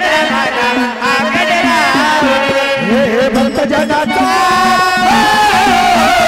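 Marathi gondhal devotional folk music: a melody that slides and bends in pitch over a steady low drone, with light drum and cymbal strokes beneath.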